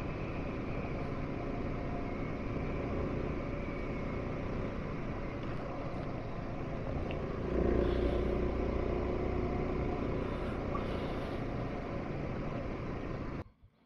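Single-cylinder dual-sport motorcycle running on the move, steady engine and riding noise that grows louder about seven and a half seconds in. The sound cuts off abruptly near the end.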